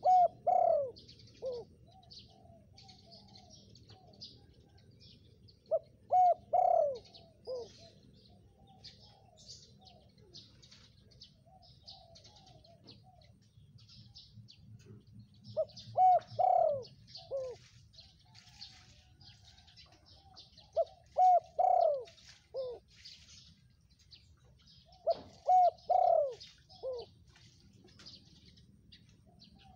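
Spotted dove cooing: five phrases at uneven gaps of several seconds, each a few short notes around one longer falling coo. Small birds chirp high and thin throughout.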